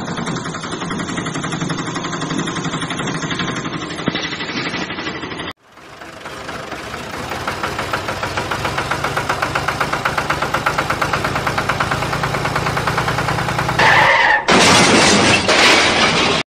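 Vehicle engine sounds: a rhythmic chugging engine that cuts off abruptly about five seconds in, then another engine that grows steadily louder. About fourteen seconds in comes a loud, harsh crashing noise lasting a couple of seconds.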